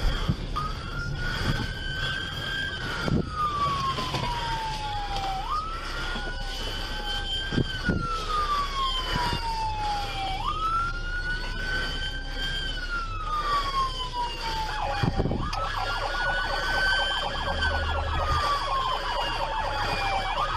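Police car siren wailing in a slow rise and fall, each cycle about five seconds long and jumping back up to start again, heard from inside the patrol car during a pursuit.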